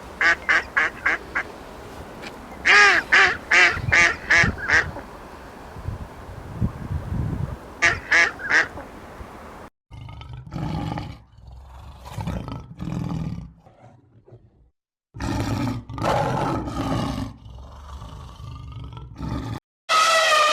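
Animal calls in short separate clips. First come three runs of quick repeated pitched calls, several a second. About ten seconds in, they give way to lower, rougher, longer calls, with breaks of silence between them.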